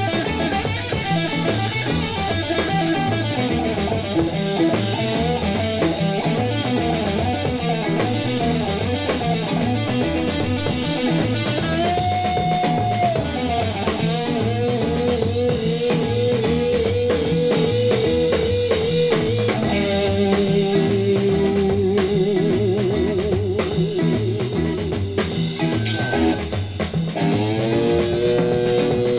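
Instrumental break of a late-1960s blues-rock record: lead guitar playing bent and sustained notes over a steady drum kit and bass. Some of the held notes waver with vibrato in the second half.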